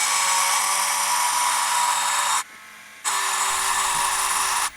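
Dremel rotary tool running with a diamond-dust bit grinding into glass, a steady high whir. It drops out after about two and a half seconds, comes back about half a second later, and cuts off near the end.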